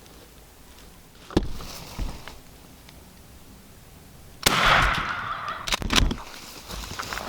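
A wild turkey gobbling: one loud, rattling call of about a second, about four and a half seconds in. It is preceded by a couple of knocks and followed by a few sharp clicks.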